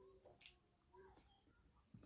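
Near silence, with a few faint clicks and soft mouth sounds from eating.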